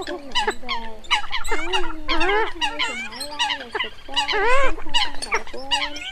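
Dense chorus of Eurasian coot calls: many short, nasal, overlapping calls that rise and fall in pitch, following one another without pause. It is a lure recording for net-trapping migrating coots at night.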